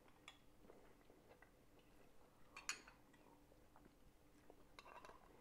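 Near silence with faint clinks of metal spoons against soup bowls, the clearest a little under three seconds in and a few more near the end.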